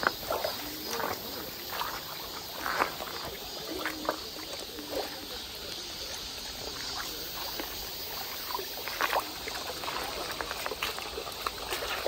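Shallow mountain stream running and trickling over stones, with scattered small splashes and sloshes from feet wading through the water.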